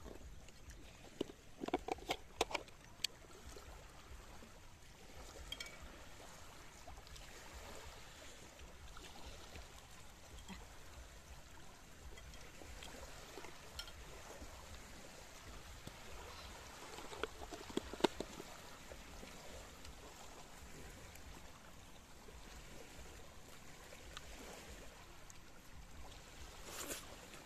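Shallow sea water lapping gently at the shore, a steady soft wash, with a few light clinks of cutlery against metal plates and a wok, a cluster of them a couple of seconds in and a sharper one about two-thirds of the way through.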